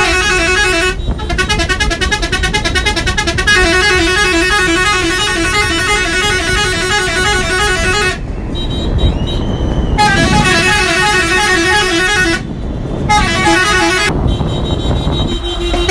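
Air horns on a convoy of VW Crafter minibuses honking in fast rhythmic pulses, several horn tones overlapping. The honking breaks off briefly about 8 seconds in and twice more near the end, leaving traffic rumble.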